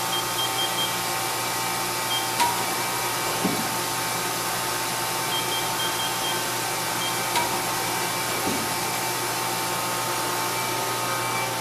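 Mori Seiki NT3200 multi-tasking turning-milling centre running with a steady machine hum made of several fixed tones. Runs of short high beeps come near the start and again about halfway through. A couple of sharp clicks sound while its lower tool turret indexes.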